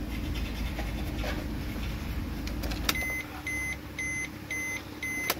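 The Maruti Swift's ignition key clicks off about three seconds in, and the car's warning chime then beeps five times, about two beeps a second. It stops with a second click near the end as the key is turned back on.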